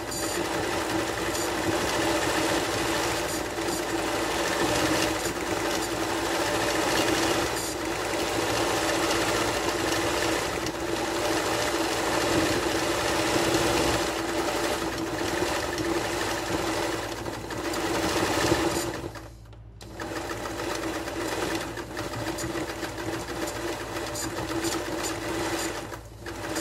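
Electric sewing machine stitching free-hand embroidery, running at a steady speed, stopping for about a second roughly two-thirds of the way through, then running again.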